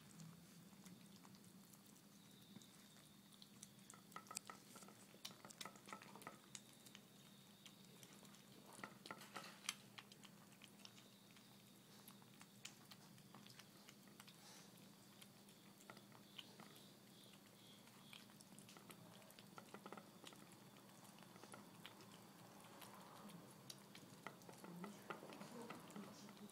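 Faint, scattered small clicks of a cat chewing and eating its food, over a steady low hum.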